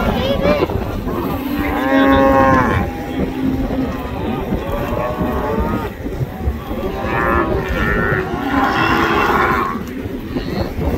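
Cattle mooing and bawling, several long calls one after another, the loudest about two seconds in.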